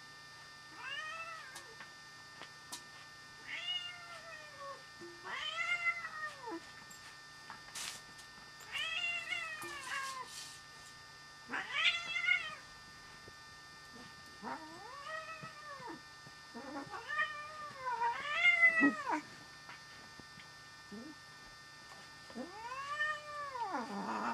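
Calico cat meowing repeatedly: about ten drawn-out meows, each about a second long, rising and then falling in pitch, a second or two apart.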